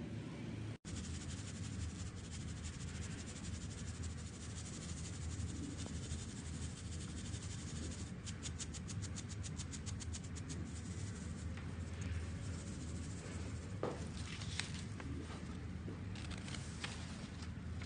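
Ground powder being shaken through a metal sieve, a fast even rasping of about eight strokes a second for a couple of seconds, then paper rustling and scraping with a few clicks as the sifted powder is tipped into a plastic box, over a steady low hum.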